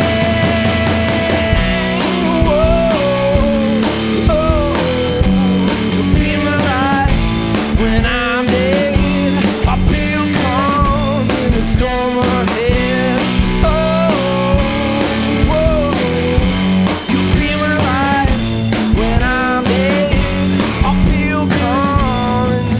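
A blues-rock duo plays a song live: electric guitar over a steady drum beat, with a lead melody line that bends and wavers in pitch.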